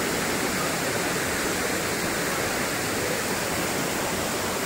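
Elephant Falls, a waterfall, rushing steadily: an even, unbroken hiss of falling water.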